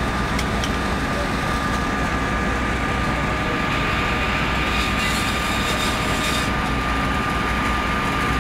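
Fire engine's motor running steadily, with a constant high whine over a low drone. A brief hiss comes in about five seconds in.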